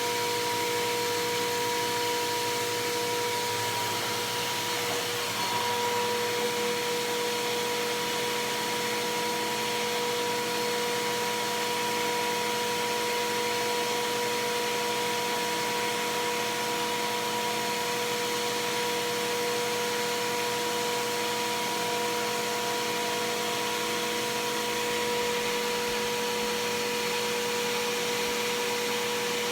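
Bissell PowerForce Helix Turbo upright vacuum running steadily: a constant motor whine over a rush of air. Its note shifts slightly about five seconds in.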